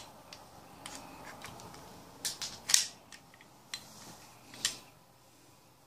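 A few sharp metallic clicks from the action of an aluminium-framed GSG 1911 .22 pistol being worked by hand, about five clicks spread between two and five seconds in.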